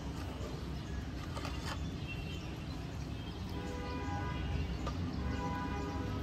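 Faint tune of held notes coming in a couple of seconds in, over a low steady rumble, with a couple of faint clicks about one and a half seconds in.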